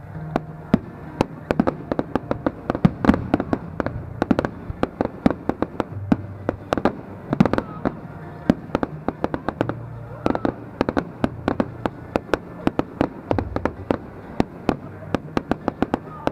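Fireworks display: a dense, continuous run of sharp cracks and pops, several a second, with louder bangs scattered among them, from crackling fountains and bursting aerial shells.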